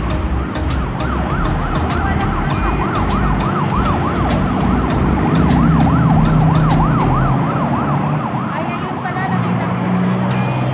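An emergency-vehicle siren yelping, its pitch sweeping rapidly up and down about three times a second over street traffic rumble. It stops near the eight-second mark, leaving a low vehicle engine hum.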